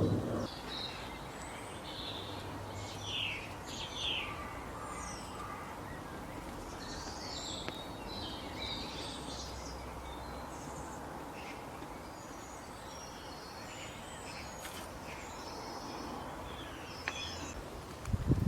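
Scattered short, high-pitched animal chirps and calls, a few sliding down in pitch, over a steady outdoor background hiss.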